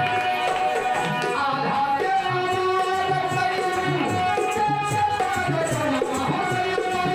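Live devotional bhajan music: tabla drumming a steady rhythm under long, held melody notes.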